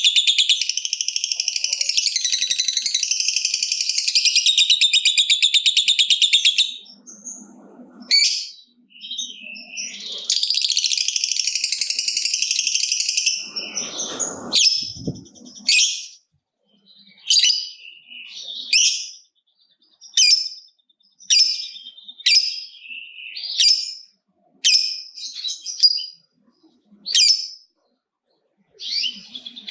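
Lovebird giving a long 'ngekek' chatter, a very fast, high, rattling trill held for about seven seconds. After a short pause a second chatter lasts about three seconds, then short sharp chirps come roughly once a second. A brief low rumble sounds about halfway through.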